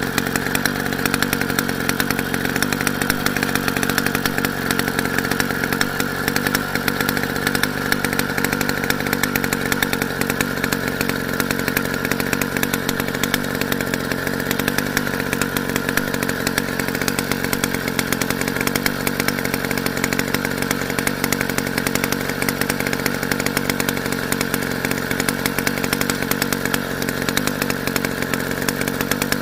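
Motorized bicycle's small engine running steadily at an even speed.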